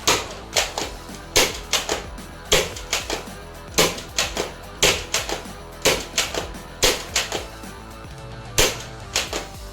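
Toy gun firing in quick bursts of two to four sharp cracks, a burst about every second, with a longer gap near the end, over background music.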